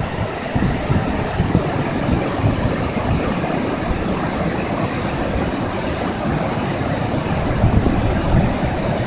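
River water rushing and churning over a weir: a steady, loud sound of white water.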